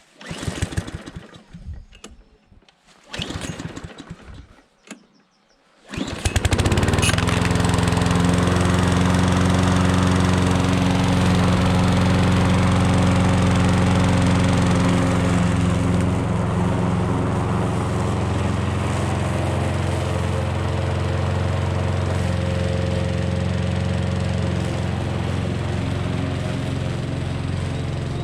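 Lawn mower's small gasoline engine being pull-started: several yanks of the recoil starter cord, then the engine catches about six seconds in and runs steadily, easing slightly partway through. It is the first start after sitting for six or seven months, on old fuel.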